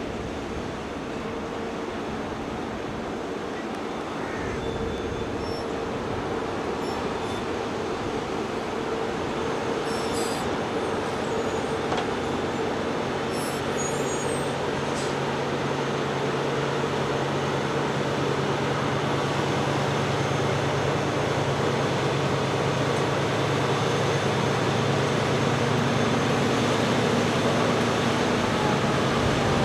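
Heavy diesel farm machinery running steadily and growing gradually louder, with a deep engine hum becoming clearer about halfway through.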